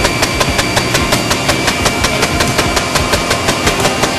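Mi-35M attack helicopter firing its cannon, a rapid, even string of sharp shots over the rumble of the running helicopter.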